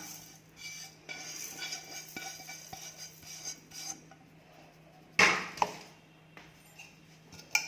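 Roasted dry spices tipped into a steel mixer jar with light rattling and clinking, then a few sharp knocks of kitchenware about two thirds of the way through. The mixer is not running.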